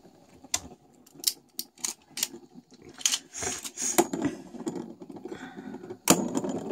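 Two toy spinning tops spinning on a wooden chessboard and clacking against each other: a run of sharp clacks, a brief rattling scrape about three and a half seconds in, and a loud clack about six seconds in.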